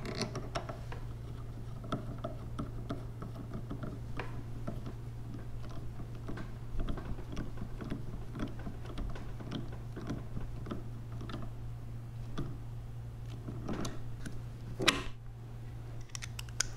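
Small, irregular metallic clicks and taps of a nut driver turning a jam nut down inside a pressure washer unloader valve's adjusting knob, with a few louder clacks near the end. A steady low hum runs underneath.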